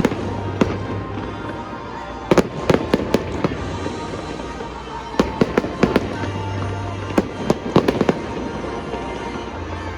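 Fireworks bursting in quick clusters of sharp cracks and bangs, four volleys a second or two apart, over background music with a steady bass.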